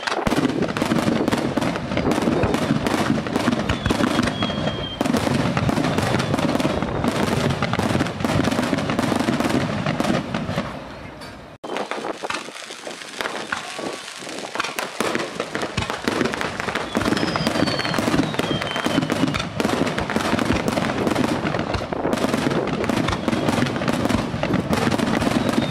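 Aerial fireworks display: a dense, continuous barrage of shells bursting in overlapping bangs and crackling, with a few short whistles falling in pitch. The barrage breaks off sharply about halfway and picks up again.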